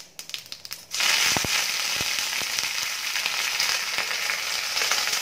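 Mustard seeds and urad dal crackling with scattered pops in hot oil in a stainless steel kadai. About a second in, curry leaves go into the oil and a loud, steady sizzle takes over, with pops running through it.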